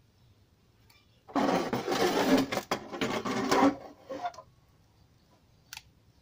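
A stereo's cabinet scraping across a wooden workbench as it is turned around, a rough rubbing noise lasting about three seconds. A single short click follows near the end.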